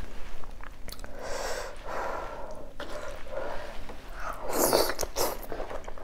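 Close-up eating sounds of beef oxtail nilaga eaten by hand: chewing and wet mouth noises, with a louder bite about four and a half seconds in.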